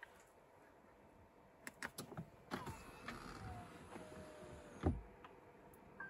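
Faint clicks and mechanical handling noises in a car cabin, with brief faint whirring, ending in a dull low thump about five seconds in.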